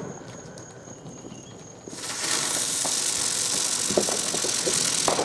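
A lit ground firework hissing steadily as it burns, starting about two seconds in and holding for about three seconds before cutting off.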